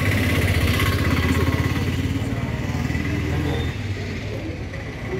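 Motorcycle engine idling steadily, a little louder for the first three or four seconds and then easing off.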